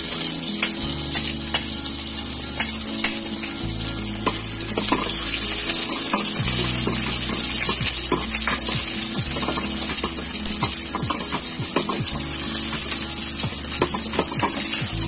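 Garlic and onion sizzling in hot oil in a stainless steel pot, with the clicks and scrapes of a ladle stirring them against the pot.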